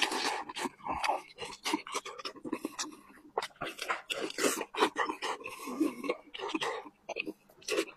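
A person eating close to the microphone: chewing and mouth smacking, an irregular string of quick clicks and short noisy bursts.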